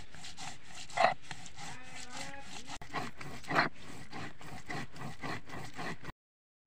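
Stone pestle of a shil-nora rubbing and scraping back and forth over poppy seeds on a wet stone grinding slab, grinding them to a paste in repeated strokes, with louder grating strokes about a second in and midway. The sound cuts off abruptly shortly before the end.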